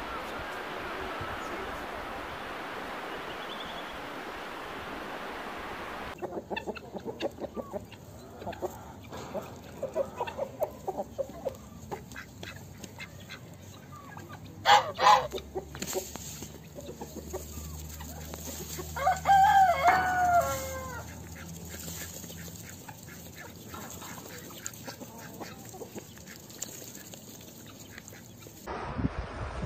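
Steady wind-and-surf noise for about six seconds, then a flock of domestic hens clucking, with a short loud squawk about halfway through and a longer drawn-out call a few seconds later.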